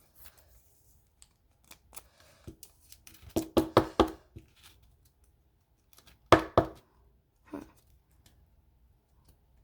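Sharp clicks and taps from handling trading cards on a table: a quick cluster about three to four seconds in, and a pair of louder clacks after six seconds.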